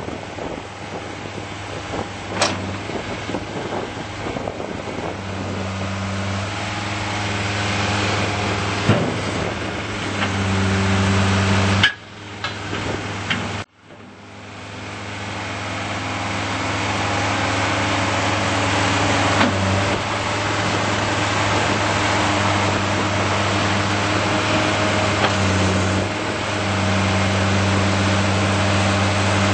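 John Deere 332D skid steer loader's turbo diesel engine running steadily, with a few sharp knocks and clicks. The sound cuts out abruptly about halfway through and builds back up over a couple of seconds, after which a faint tone slowly rises.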